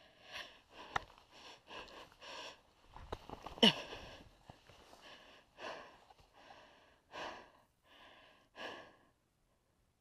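Heavy, rapid breathing of an out-of-breath rider after exertion: a string of short puffs in and out, about one every half second to second, loudest just after three and a half seconds in, stopping about nine seconds in.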